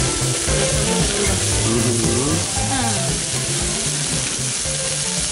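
Mixed vegetables sizzling on a hot teppanyaki steel griddle, stirred and turned with a metal spatula, with music playing underneath.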